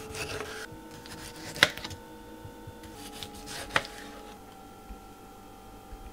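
Kitchen knife slicing through a tomato on a cutting board, the blade knocking sharply on the board twice, about a second and a half in and again about two seconds later. Soft background music with long held notes plays underneath.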